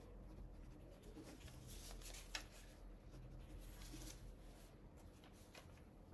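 Faint scratching of a pen writing signatures on paper, with a few soft rustles and ticks as the contract pages are handled and turned.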